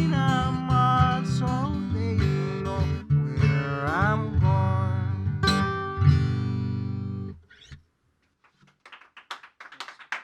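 Acoustic guitar playing the instrumental close of a folk song, then stopping about seven and a half seconds in. After a short silence, faint scattered clapping begins near the end.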